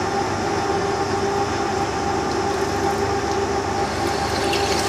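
Turret lathe running with a steady machine hum at two pitches, while a big center drill is fed into the rear of a model diesel engine's crankcase casting to center the bearing housing. A few faint ticks come near the end.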